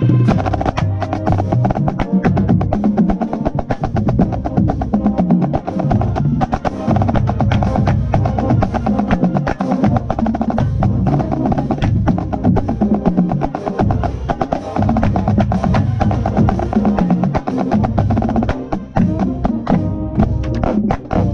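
Marching drumline snare drums playing rapid, dense stick patterns close to the microphone, over a marching band's brass playing a funk arrangement.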